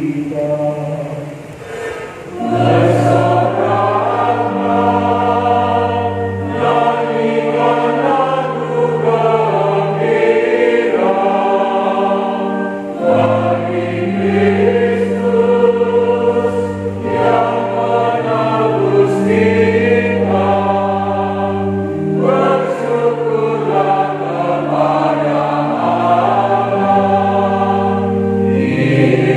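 Mixed church choir of men's and women's voices singing a hymn in held chords that change every second or two. There is a brief lull near the start before the full choir comes back in.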